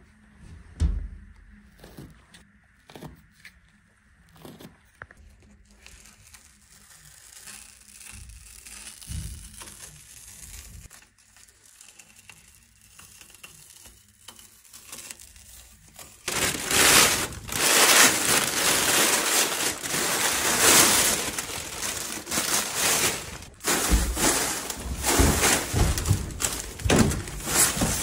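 Masking tape and masking paper being pulled off a car's bodywork: faint peeling and clicking at first, then, from about halfway through, loud crinkling and tearing as the paper is ripped off and balled up.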